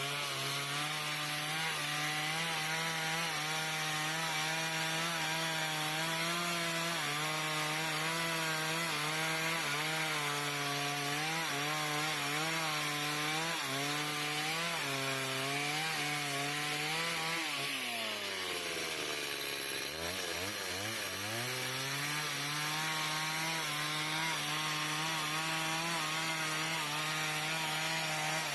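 Stihl two-stroke chainsaw running at high revs while cutting through timber, its pitch wavering under the load. About two-thirds of the way through, the revs fall away for a couple of seconds and then climb back up as cutting resumes.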